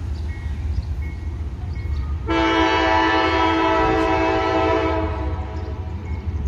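Diesel locomotive air horn on an approaching train, sounding one long blast of several tones together. The blast starts about two seconds in and lasts nearly three seconds, over a low steady rumble.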